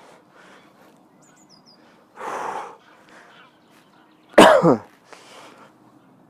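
A man's breathing while he stretches: a breathy exhale about two seconds in, then a louder short voiced exhale that falls steeply in pitch. Faint bird chirps are heard twice.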